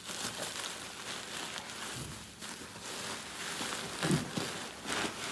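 Plastic wrapping and packing material rustling and crinkling as a heavy cylinder head is worked loose inside a cardboard box, with a brief louder sound about four seconds in.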